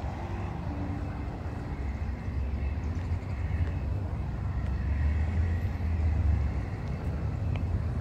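Outdoor ambience: a steady low rumble that grows somewhat louder about three seconds in.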